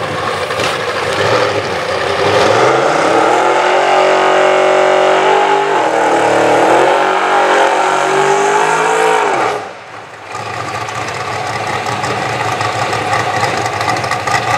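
Drag car's engine revved up and held at high revs for about seven seconds, sagging briefly midway, then cut off abruptly; after a short lull a rougher, lower engine sound carries on.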